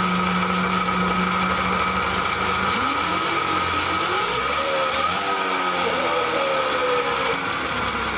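QS120 electric mid-drive motor spinning the rear wheel through a large drive chain: a steady electric whine with loud chain noise. About three seconds in, the motor speeds up and its pitch rises in a climbing whine.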